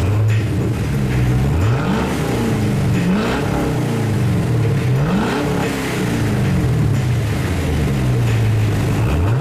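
2011 Camaro SS 6.2-litre V8 running through an aftermarket exhaust with a stainless X-pipe in place of the resonator, revved several times. The pitch climbs and drops back to idle between blips.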